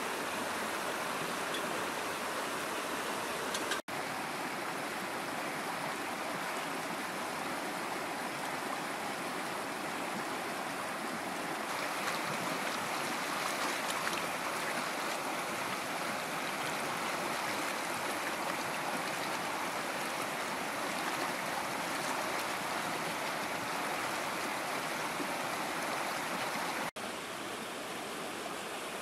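Steady rushing of a shallow, rocky river running over rapids. It drops out for an instant twice, about four seconds in and near the end, and is a little quieter after the second break.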